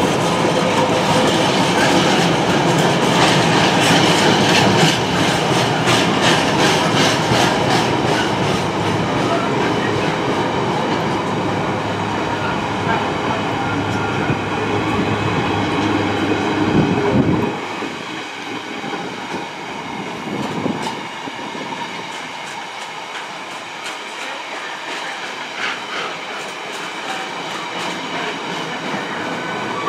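Intermodal container freight train's flat wagons rolling past, wheels clicking rhythmically over rail joints. About two-thirds of the way through the deep rumble drops away suddenly, leaving a lighter rolling clatter.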